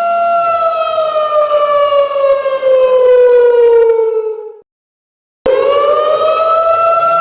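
A siren's wailing tone holds steady, then glides slowly down in pitch for about four seconds and fades out. After a short silence it starts again low and climbs back up to its steady pitch.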